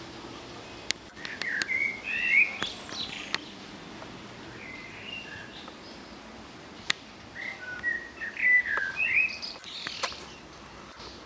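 A bird singing in two short bursts of quick chirping, rising and falling notes, the second starting about seven seconds in. A few sharp clicks fall between the notes.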